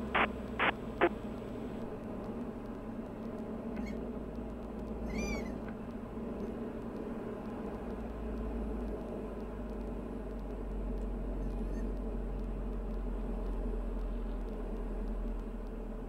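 Diamond DA40 single-engine plane's engine and propeller drone, heard steadily inside the cockpit during the final approach and flare, with a low rumble growing stronger after a few seconds. A brief warbling tone sounds once about five seconds in.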